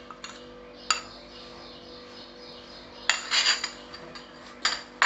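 A metal spoon clinking and scraping against a paniyaram pan as oil is spooned into its compartments. There is one tap about a second in, then quick runs of clinks after three seconds and again near the end.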